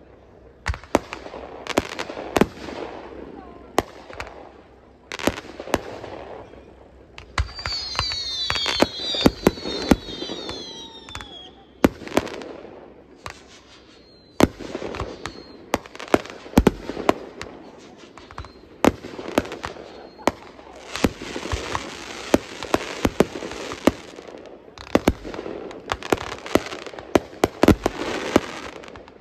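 Consumer fireworks going off: a rapid, irregular series of sharp bangs from bursting shells. A cluster of high sliding whistles comes about a third of the way in, and a few seconds of dense crackling hiss come past the middle.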